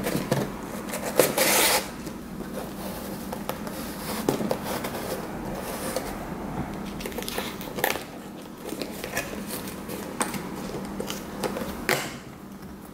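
Cardboard tab and knob of a homemade shoebox vending machine being worked by hand: scraping and rustling as the tab slides out and back in, then scattered clicks and scrapes as the knob is turned and a squishy toy is taken out. The loudest scrape comes about a second in.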